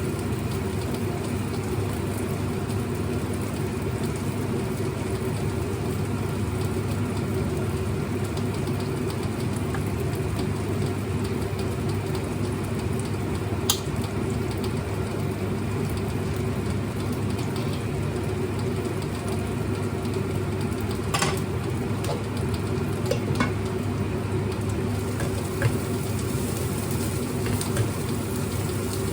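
Steady kitchen background noise: a constant low mechanical hum with a hiss over it, and a few light clicks in the second half.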